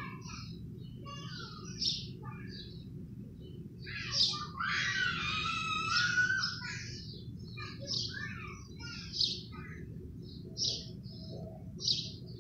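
Small songbirds chirping in short, high calls about once a second, with a busier stretch of overlapping song between about four and seven seconds in, over a steady low background hum.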